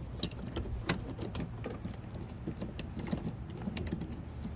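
Scattered light clicks and rattles of a wiring harness and its plastic clips being handled and pushed into place inside a van door, the sharpest click about a second in, over a steady low hum.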